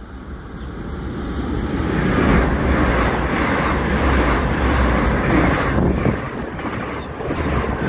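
Great Western Railway Intercity Express Train running through the station at speed: the rush of wheels on rail and air grows louder over about two seconds, then holds loud and steady as the coaches pass, with a low rumble beneath, easing slightly near the end.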